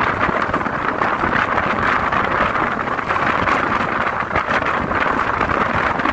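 Wind rushing over the microphone together with the steady running noise of the Pothigai Express passenger coaches and wheels on the rails, a continuous loud hiss with faint scattered knocks.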